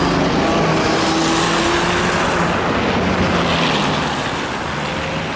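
A car drives past close by on a wet, slushy winter road, its tyre hiss and engine loud at first, then the traffic noise dies down about four seconds in.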